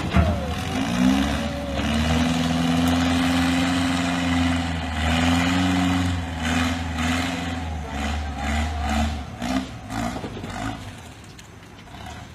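A heavy vehicle engine revs up about a second in and holds at high revs, then surges in shorter bursts before dropping away near the end.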